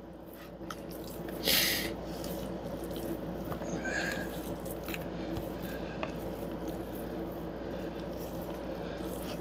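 Raw seasoned chicken strips squishing and slapping softly as a hand tosses them in a plastic container, with a brief louder hiss about one and a half seconds in.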